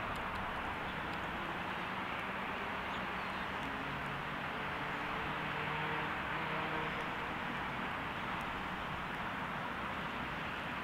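Distant diesel locomotive approaching with its train: a steady rumble with a faint engine drone that swells slightly around the middle.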